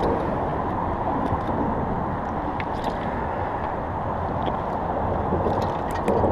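Steady rushing background noise on the water beneath a highway bridge, with a few faint clicks.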